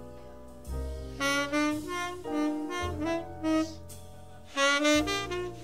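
Tenor saxophone playing the melody of a slow jazz ballad in short phrases, its notes swelling loudest about a second in and again near the end, with a double bass holding low notes underneath; a live jazz quartet recording.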